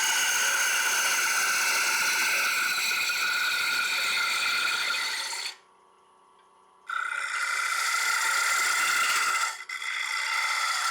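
Turning tool cutting into a spinning wet-wood bowl on a lathe as its inside is hollowed out: a steady hiss with high ringing tones that slowly fall in pitch. The cut stops for about a second just past the middle, then resumes and breaks off briefly near the end.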